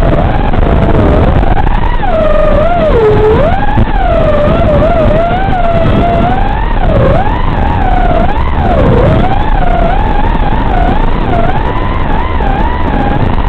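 FPV racing quadcopter's Emax RS2205 2600kv brushless motors and props whining, the pitch swooping up and down again and again as the throttle is worked, over a rough rushing noise, heard through the analog video link.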